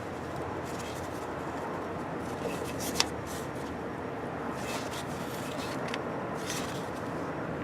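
Light handling noises of hand tools: a few faint scrapes and one sharp click about three seconds in, over a steady low hiss.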